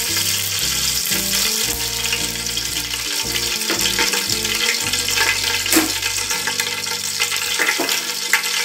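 Ghee poured into hot oil in a cooking pot, sizzling and crackling steadily as it heats, over background music.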